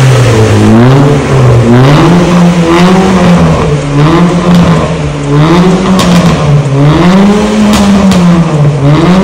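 Honda Brio's engine blipped repeatedly at standstill through an aftermarket valvetronic exhaust, the exhaust note rising and falling about once a second.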